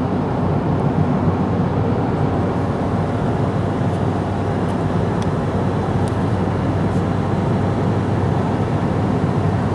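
Steady road and engine noise heard inside a car's cabin while it drives along a highway.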